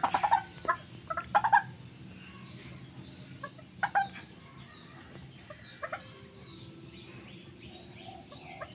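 White-breasted waterhen giving short calls: a few in the first two seconds, another around four seconds in and one near six seconds.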